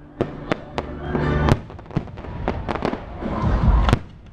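Fireworks going off: about ten sharp bangs at irregular intervals, with crackling in between.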